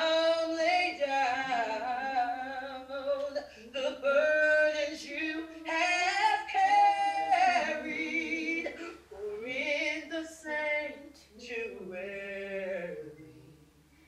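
A woman singing unaccompanied, slow phrases of long held notes that slide between pitches, in a small room.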